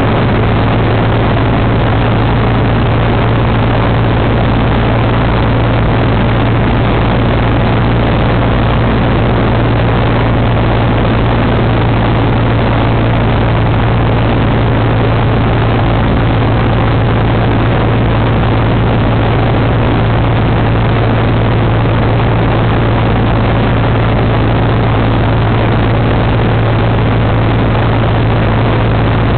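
Cessna light aircraft's piston engine and propeller droning steadily in flight, heard from inside the cabin: a strong low hum under a loud, even rush of engine and wind noise.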